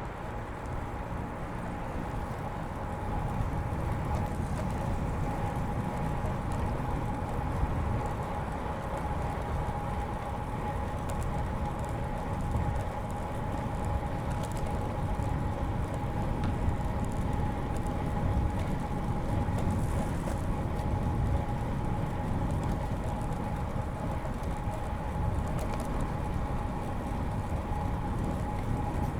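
Riding noise of a road bicycle on a paved bike path: a steady low rumble of tyres and wind, with a thin steady whine running through it.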